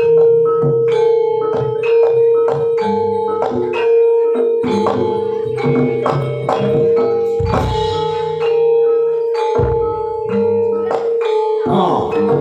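Javanese gamelan music for a jaranan horse dance: struck metallophones ringing in a steady rhythm over low drum strokes, with one sustained note held throughout.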